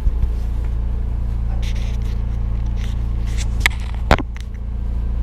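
Steady low motor hum throughout, with rustling and scraping from a GoPro being handled and set in place. Two sharp clicks come about three and a half and four seconds in.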